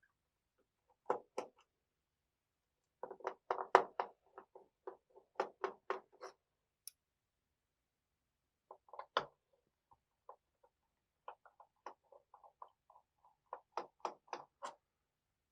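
Small clicks and ticks of a screwdriver turning out the screws of an Asus X540LA laptop's plastic bottom case. They come in clusters, a dense run about three seconds in and another toward the end, with short pauses between.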